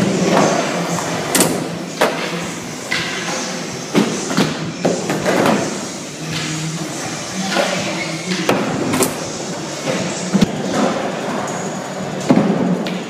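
Skateboard wheels rolling on a smooth concrete floor, broken by several sharp clacks and thuds of the board popping and landing.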